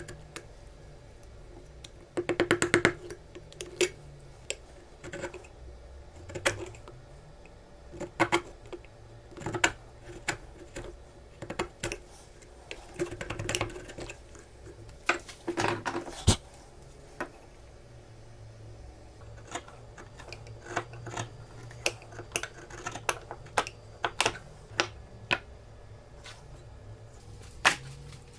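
Steel chisel paring and scraping the inside corner of a rebate in hardwood: irregular sharp clicks and short scrapes, with a fast rattling run about two seconds in and a single sharp knock a little past halfway.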